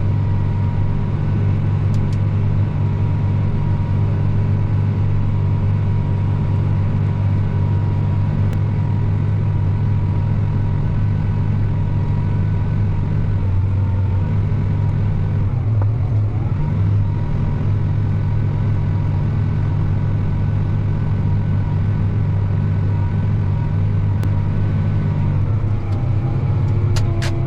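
Tractor engine running steadily, a low drone with a faint steady high whine above it.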